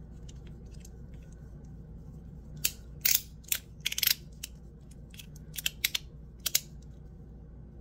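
Ti Rhythm titanium fidget slider being worked back and forth by hand, giving sharp metallic clicks at an uneven pace. The clicks come in a quick cluster partway through, then a few more spaced out.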